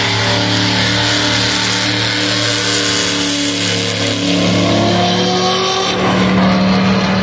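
Drag-racing cars, a red hot-rod coupe and a red car, making a pass down the strip with engines at full throttle, the pitch climbing steadily. About six seconds in the pitch drops and starts climbing again.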